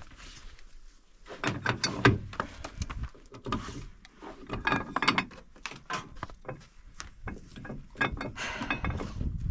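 Irregular knocks, clicks and rattles in bunches as a heat lamp is hung and adjusted higher in a wooden chicken coop.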